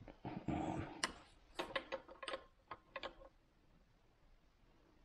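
Rustling and rubbing, then a quick run of light, irregular clicks as a hydraulic trim hose fitting on a Volvo Penta SX Cobra gimbal housing is worked and turned by hand.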